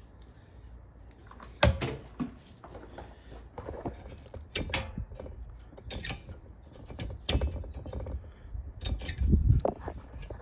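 Irregular clicks, taps and knocks of a stuck heater valve control cable on a 1955 Chevy heater box being worked by hand, with a sharp click early and a louder low thump near the end.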